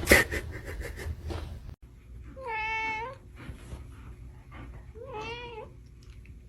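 A domestic cat meowing twice, two separate drawn-out meows a couple of seconds apart, the second rising and falling. Before them comes a sharp knock and a short rattle of clicks.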